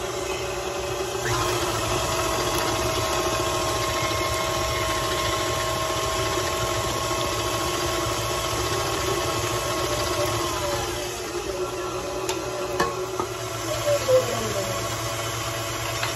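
Electric mixer running steadily as it creams butter, sugar and eggs into batter. About a second in its motor whine steps up to a higher speed, and around eleven seconds it slows back down to a lower pitch.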